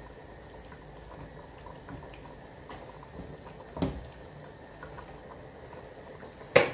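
Black-eyed beans boiling in a large stainless steel pot, a steady low bubbling with small pops. A dull knock comes about four seconds in and a sharper, louder knock near the end.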